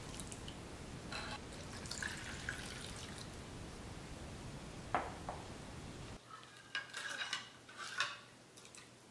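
Water poured from a measuring jug into a glass bowl of paste, a steady splashing, then a metal spoon stirring the liquid and clinking against the glass bowl several times near the end.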